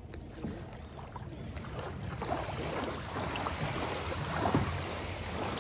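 Water lapping and splashing around a wooden canoe as it is poled in toward a muddy shore, its wash washing onto the bank, growing slowly louder as the boat comes closer. Wind rumbles on the microphone throughout.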